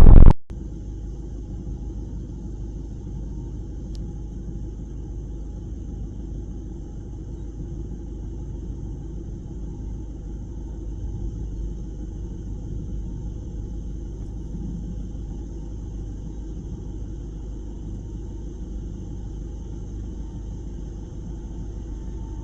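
Steady low rumble with faint, steady high-pitched tones above it. It begins abruptly as a much louder sound cuts off.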